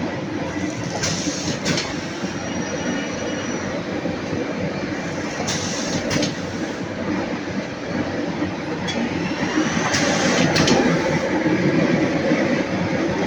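Shrink-wrapping machine running with a steady mechanical rumble. Short sharp clicks or hisses come in pairs about every four and a half seconds, as the machine cycles through each container.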